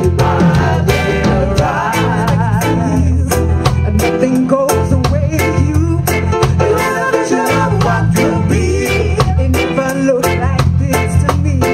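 Live reggae band playing, with several vocalists singing together over a steady bass line, drums and guitar. The voices waver with vibrato.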